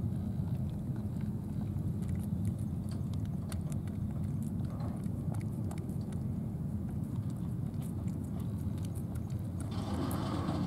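A cat licking a lickable paste treat from a squeeze pouch, many small wet tongue clicks over a steady low rumble. A brief louder sound comes near the end.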